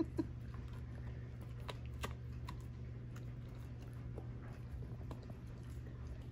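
Dog gnawing on a hand-held chew stick: faint, scattered clicks of teeth on the chew over a steady low hum.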